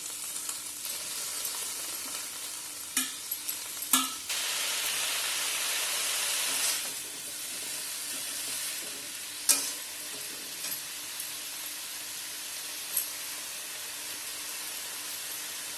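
Vegetables frying and sizzling in a pan as they are stirred, with a few sharp knocks of the spatula against the pan. The sizzle grows louder for a few seconds, starting about four seconds in.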